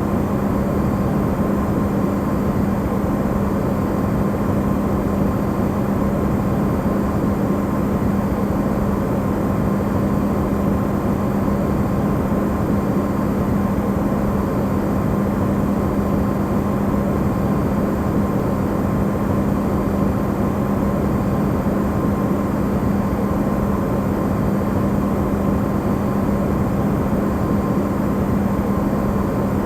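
Amplified recording of an Electrolux refrigerator running: a steady low hum over an even rush of noise that never changes.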